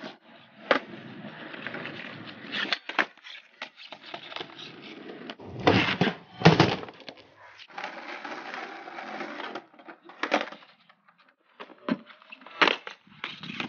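Skateboard wheels rolling on concrete, broken by sharp clacks of the board popping, slapping down and landing, the loudest pair about six seconds in.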